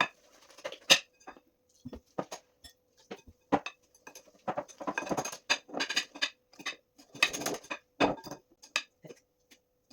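Irregular clinks and taps of a kitchen utensil against a mixing bowl while a flour-and-water batter is mixed, sometimes in quick little clusters.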